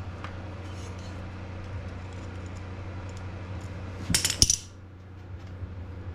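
Metal parts being handled at a pit bike's engine: a brief cluster of sharp metallic clinks about four seconds in, over a steady low hum.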